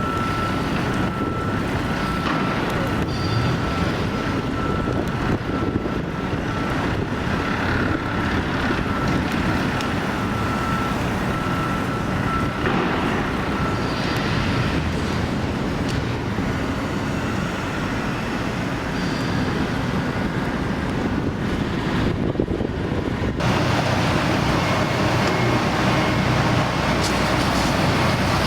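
Steady city traffic and construction-site machinery noise, with a high steady tone through the first half and a faint repeating beep near the end. The sound changes abruptly about 23 seconds in.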